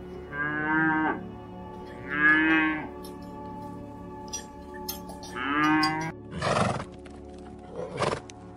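Cattle mooing, three short calls of under a second each, over steady background music. Two short breathy rushes of noise follow near the end.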